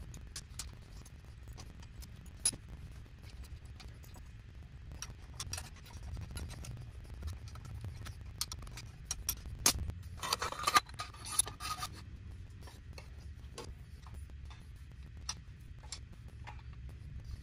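Metal hand tools and engine parts clicking and tapping as a generator is fitted onto a vintage motorcycle engine's timing case and fastened. About ten seconds in there is a rasping scrape of about two seconds.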